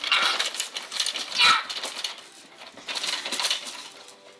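Fake coughing: three raspy, breathy cough-like bursts, one at the start, a stronger one about a second and a half in, and another about three seconds in.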